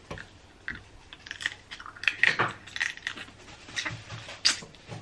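Close-miked eating of snow crab: biting and chewing crab meat pulled from the shell, with wet mouth noises and sharp, irregular clicks.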